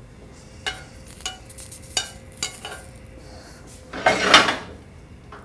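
Dishware and utensils clinking: four light, ringing clinks as cooked skewers are set on a plate, then a louder scraping noise about four seconds in.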